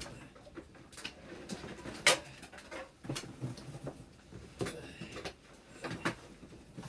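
Scattered knocks, clicks and rustling from someone climbing and moving among stored clutter in the rafters, with the sharpest knock about two seconds in.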